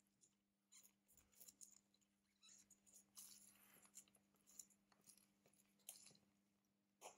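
Faint clicks and scraping of small hand tools working on a Samsung Galaxy S9 smartphone, with a longer scratchy stretch a few seconds in, over a faint steady hum.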